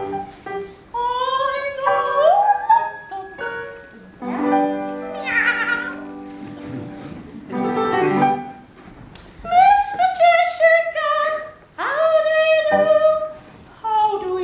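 Operatic singing over live piano, in separate phrases broken by short pauses, the voice sliding up in pitch about two seconds in and falling in long slides around ten seconds in.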